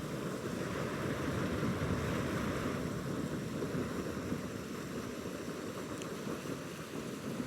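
Steady rushing of the inlet stream's water pouring into a trout pond, an even wash of noise with a faint tick about six seconds in.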